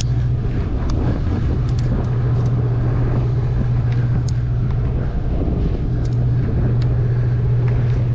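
Boat engine running with a steady low drone, under wind and water noise, with scattered light clicks and rattles.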